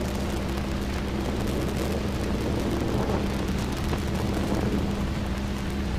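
Steady, even roar of the Voskhod rocket's engines as it climbs away after liftoff.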